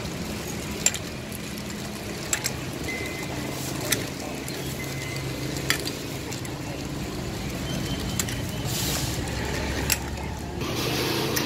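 Ice cubes clicking as they are handled in a plastic colander and dropped into a plastic bag: about six separate sharp clicks over a steady low background hum.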